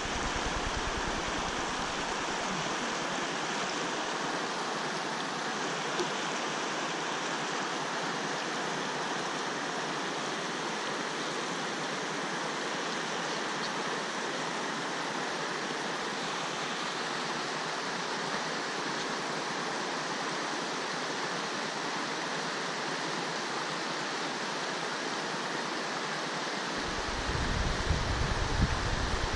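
Steady rushing of river water flowing over rocks. A low rumble comes in near the end.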